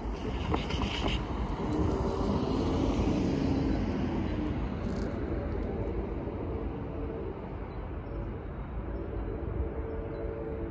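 A car drives across the railroad grade crossing and away, followed by a steady low rumble of road traffic with a faint hum.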